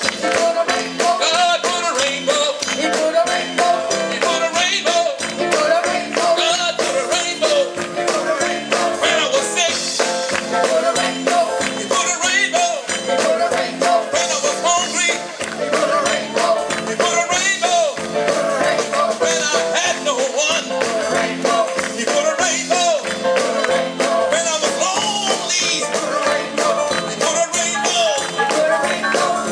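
Live gospel band playing an upbeat number with a fast, steady beat.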